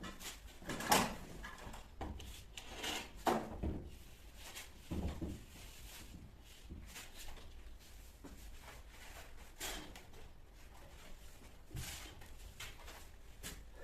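Scattered knocks and scraping rubs of something being handled, loudest about a second in and again around three and a half seconds.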